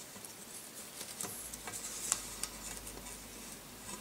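Faint clicks and rustling as a GT3 timing belt is pressed by hand into the groove of a V-slot aluminium rail, with one sharper click about two seconds in.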